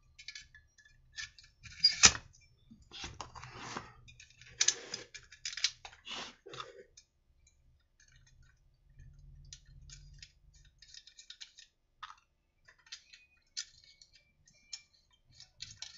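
Small clicks, taps and brief scrapes of metal and plastic parts being handled while the ignition coil is fitted beside a chainsaw's flywheel magnet, with a sharper click about two seconds in.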